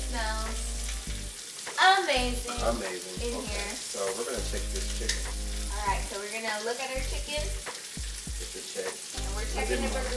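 Chicken breasts sizzling on a hot ridged cast iron griddle pan, a steady frying hiss. Pitched, voice-like sounds come and go over it, loudest about two seconds in.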